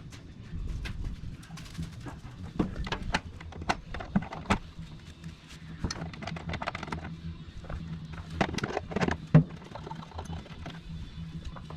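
Scattered clinks and knocks of hand tools working on the steel plow, over a steady low hum, with a sharper knock a little past the middle.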